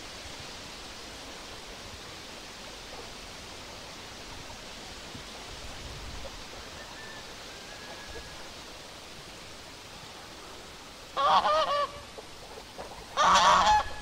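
A goose honking: two loud calls near the end, about two seconds apart, each wavering in pitch, over a steady background hiss.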